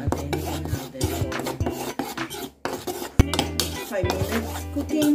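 Metal spoon stirring a dry flour and cornstarch mix in a bowl, with repeated scrapes and clinks of the spoon against the bowl.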